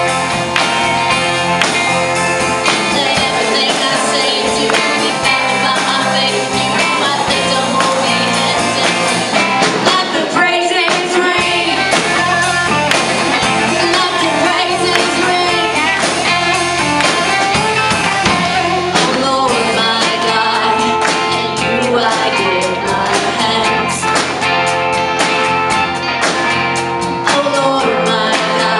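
Live church worship band and singers performing an upbeat contemporary worship song: voices singing the melody over a steady drum beat and band backing.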